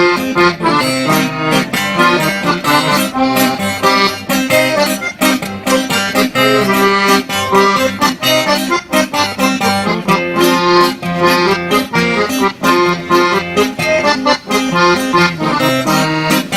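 Instrumental break in a song: a melody over a steady beat, with no singing.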